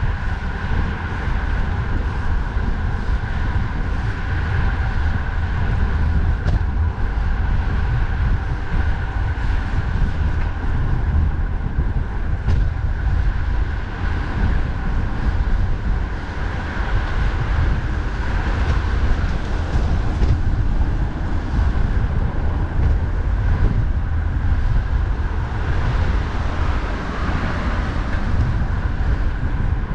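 Steady rumble of wind buffeting the microphone on a moving bicycle, mixed with the constant noise of passing road traffic.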